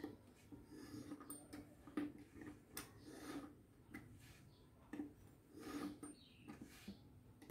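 Knife blade being drawn repeatedly through a handheld pull-through knife sharpener. It gives a faint series of short scraping strokes, roughly one or two a second, as the knife is pulled back and forth to sharpen it.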